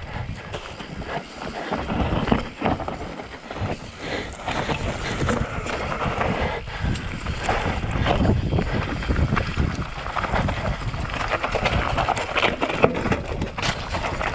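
Mountain bike descending a steep, rocky dirt trail: tyres rolling over dirt and loose stones, the bike rattling with frequent sharp knocks over bumps, and wind rushing over the microphone.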